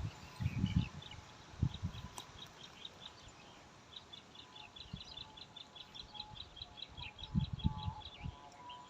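Small birds chirping: scattered high chirps, then a quick, even run of about six chirps a second in the middle. Short low rumbles come and go, strongest near the start and about three-quarters through.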